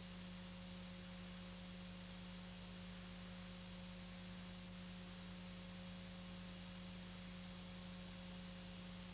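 Faint steady electrical hum: a low tone with a weaker, higher tone above it.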